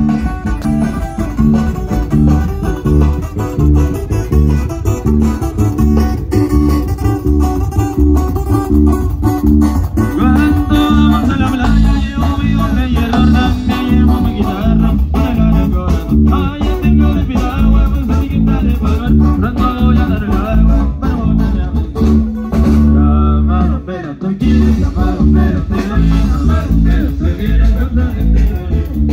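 Loud live sierreño music through a PA system: plucked guitars over a heavy bass line, with a brief break about twenty-three seconds in.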